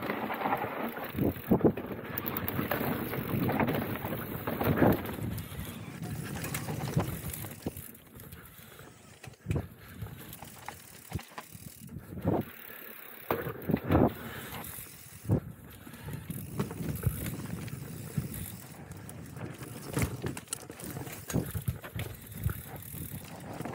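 Downhill mountain bike descending a loose, dusty, rocky trail: tyres crunching over dirt and stones, with frequent sharp clattering knocks as the bike hits rocks and roots. The rattle eases off briefly about eight and twelve seconds in.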